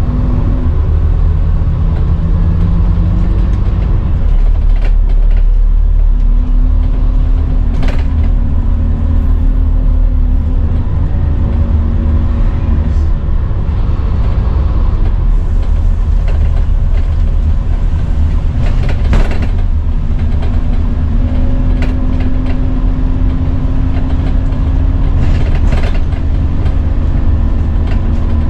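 Scania N230UD double-decker bus's five-cylinder diesel running on the move, heard from inside the passenger saloon: a steady low rumble whose engine note shifts up and down in pitch as the bus changes speed, with scattered rattles and knocks from the body.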